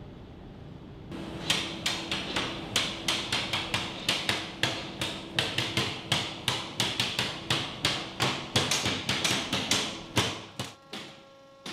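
A cooper hammering hoops down onto an oak cask: sharp hammer blows starting about a second in, about three a second, then thinning out and stopping near the end.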